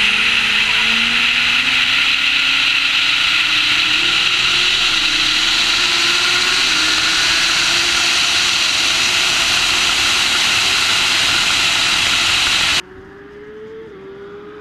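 Nissan GT-R R35 twin-turbo V6 accelerating hard at high speed, heard from a camera mounted on the car, with heavy wind rush over the microphone. The engine note climbs steadily with small steps at each quick upshift. Near the end it cuts to a quieter, more distant engine still rising through its gears.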